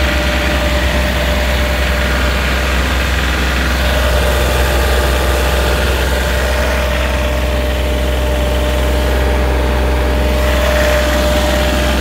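BOMAG BW 120 AD-5 tandem roller's Kubota D1803 diesel engine running steadily, a low rumble with a thin steady whine over it.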